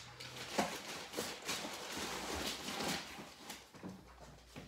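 Packing paper rustling and soft knocks from paper-wrapped baking trays being stacked on their side in a cardboard box, busiest in the first three seconds and quieter near the end.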